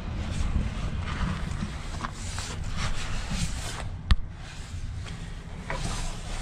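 Low rumbling wind and handling noise on a hand-held phone microphone as it is carried into a pickup's cab, with one sharp click about four seconds in.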